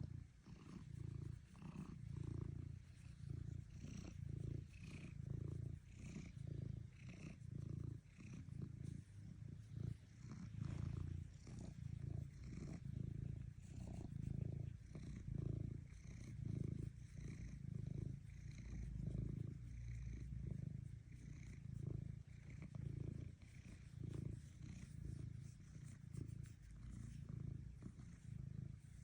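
Domestic cat purring steadily, a low rumble that swells and fades in an even rhythm every second or two.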